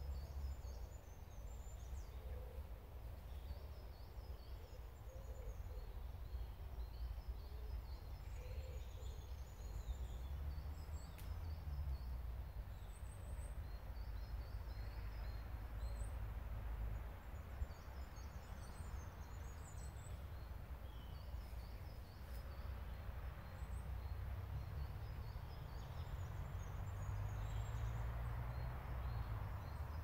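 Small birds chirping, short high-pitched calls repeated over and over, above a steady low rumble.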